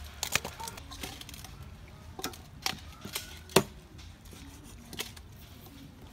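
Cleaver chopping raw, skinned frog on a round wooden chopping board: about seven uneven, sharp knocks, the loudest about three and a half seconds in.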